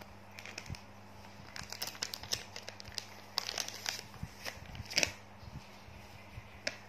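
A baby monkey's diaper being handled during a diaper change, crinkling in irregular clusters of crackles, loudest about five seconds in.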